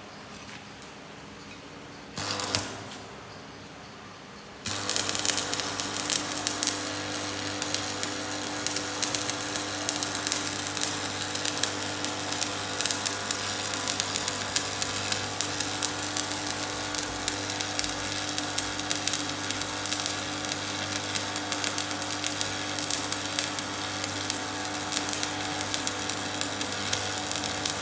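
Electric arc welding: a brief arc strike about two seconds in, then from about five seconds a continuous crackling arc over the steady hum of the welding machine.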